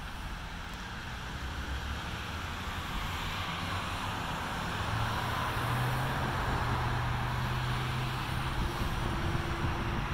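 A vehicle running: a steady rushing noise that grows louder over the first few seconds, with a low hum joining about halfway through.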